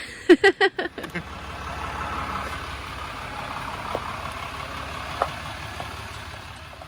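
Pickup truck engine running at low speed, a steady low rumble, as the truck is manoeuvred back toward a trailer hitch.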